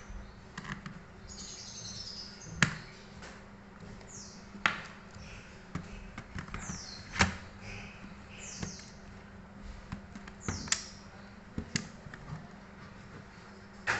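Hands and small tools working on a netbook's plastic case during reassembly: a string of sharp clicks and taps, with several short high squeaks that fall in pitch.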